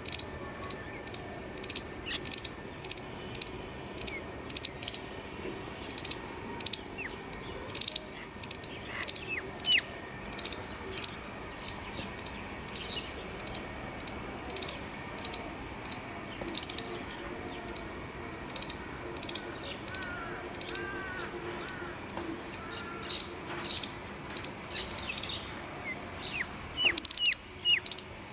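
Small birds chirping: a short, high chirp repeated over and over, roughly twice a second, with a few lower whistled notes in between and a quick run of chirps near the end, over a faint steady background.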